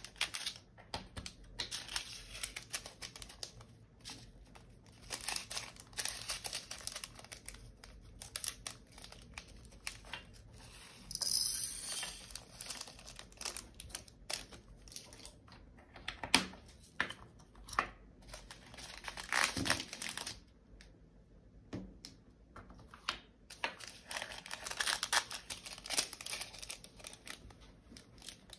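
Small plastic bags of diamond-painting drills crinkling as they are handled and opened, in irregular bursts with a few sharp clicks in between.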